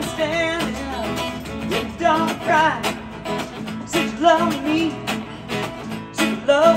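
A man singing live into a microphone while strumming an acoustic guitar, his voice sliding and wavering on held notes between the chords.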